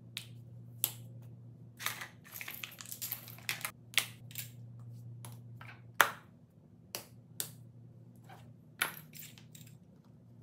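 Plastic and silicone fidget toys being picked up and set down on a board by hand: a run of sharp taps and clicks, with a stretch of rattling clatter about two to three and a half seconds in and one loud clack about six seconds in.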